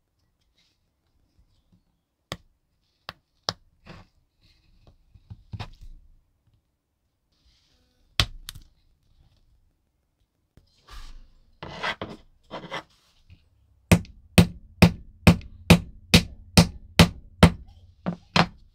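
Small hand-tool work on a workbench: scattered clicks and a knock, a few seconds of scraping, then a steady run of about eleven sharp taps, roughly two a second.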